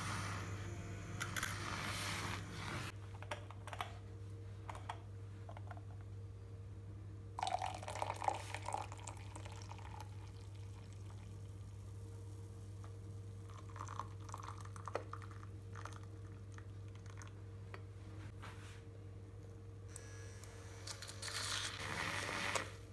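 Kitchen handling sounds while frothing milk for coffee: pouring and clinking of a milk-frother jug and glass at the start, a short clatter of the press and glass in the middle, and near the end a handheld electric milk frother whirring in the drink, all over a steady low hum.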